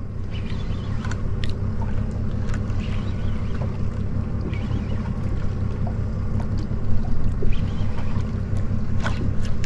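Steady low hum of a boat's Yamaha 300 outboard engine idling, with light water noise and faint ticks over it; a few brief louder rustling noises come near the end.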